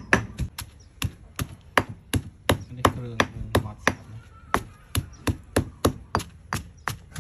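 Stone pestle pounding a wet spice paste in a stone mortar: dull knocks at a steady pace of about three a second, with a short break around four seconds in.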